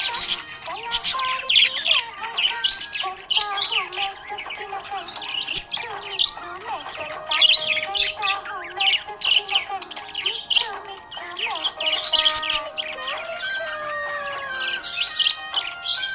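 Budgerigar chirping and chattering: a rapid, continuous stream of short high chirps and warbles.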